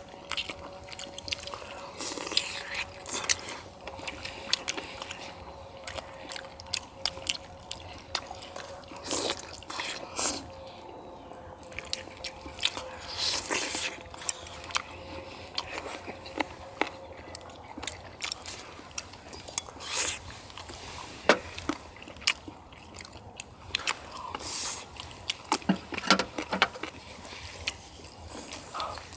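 People eating spicy braised chicken and baby octopus: chewing, slurping, and chopsticks and a ladle clicking and scraping against bowls and the cast-iron pan, heard as many short separate sounds. A faint steady hum runs under the first half and then fades out.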